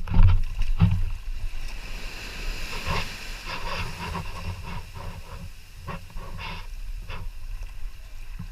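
Wind buffeting the microphone in a low rumble, with water splashing and knocking against a kayak several times.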